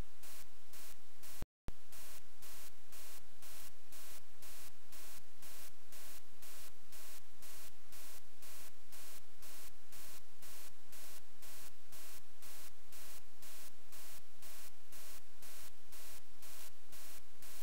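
Steady electronic static hiss from the recording chain, pulsing evenly several times a second, with one brief dropout about a second and a half in.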